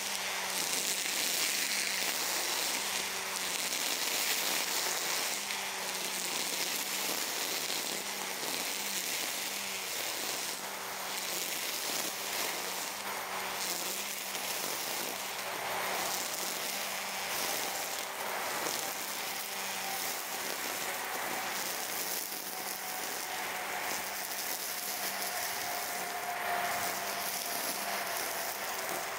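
EGO Power+ cordless brush cutter running steadily, its head hissing through tall grass as it is swung from side to side, with a steady electric motor hum underneath.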